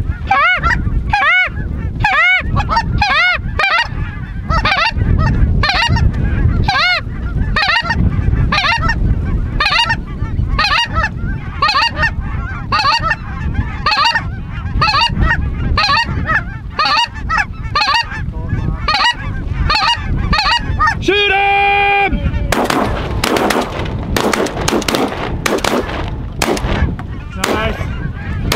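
Snow goose honking: repeated high yelping calls, about two a second, swelling near the end into a dense chorus of many overlapping honks. A single steady held note sounds about three-quarters of the way through.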